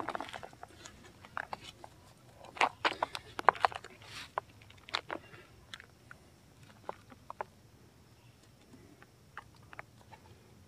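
Hands fastening a minimalist strap sandal: webbing straps sliding and the plastic clip buckle being handled, heard as scattered clicks, taps and rustles. The sharpest clicks come in a cluster about two and a half to four seconds in, with fewer, smaller ticks later.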